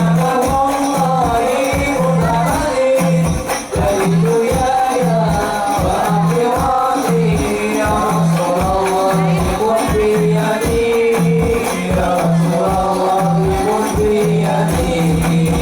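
Sholawat, Islamic devotional singing, by a group of voices with hand drums and jingles keeping a steady, regular beat.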